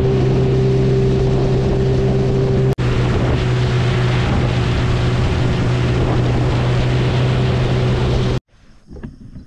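Motorboat engine running steadily with a constant low hum, over a rush of wind and water noise. The sound drops out for an instant about three seconds in and cuts off abruptly a little after eight seconds.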